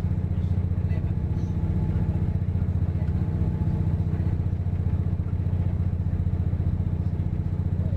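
Interior running noise of a diesel passenger train under way: a steady low rumble of engine and wheels on rail, even throughout.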